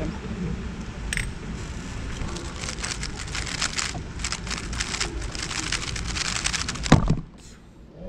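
Rapid clicking of a GAN 12 M Maglev 3x3 speedcube turned through a solve of under five seconds, ending about seven seconds in with one loud slap as the hands come down on the timer to stop it. A steady low hall noise runs underneath.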